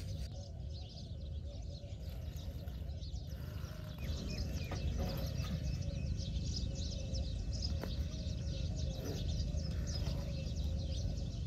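Small birds chirping and twittering over a steady low rumble; the chirping becomes much busier about four seconds in.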